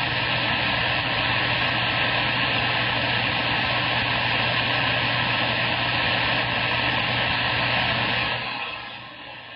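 CB radio receiver hiss: a loud, steady rush of static through the speaker, with a low hum under it, dropping off sharply a little before the end.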